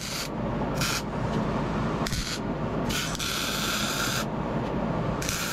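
Wire-feed welding arc crackling steadily as a bead is run on steel, with a brighter hiss that cuts in and out abruptly several times.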